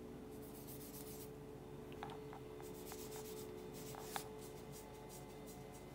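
Faint scratching and a few soft taps of a paintbrush mixing oil paint on a palette, over a low steady hum.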